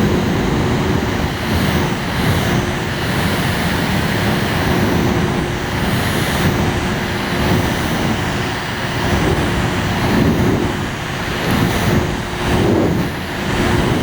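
The fan of a miniature air conditioner running, a steady rushing of air with a constant hum and an uneven low buffeting.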